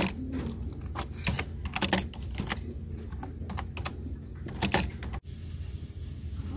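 Typing on a computer keyboard: irregular key clicks with a few louder clacks, over a low steady hum. The typing stops suddenly about five seconds in.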